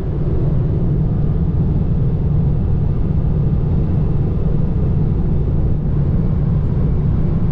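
Steady low rumble of a car on the move: engine and road noise, even and unbroken.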